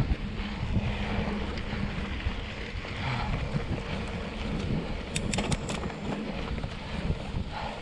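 Wind buffeting the microphone of a moving mountain bike on a dirt road, a low rumbling noise, with a quick cluster of sharp clicks a little past halfway.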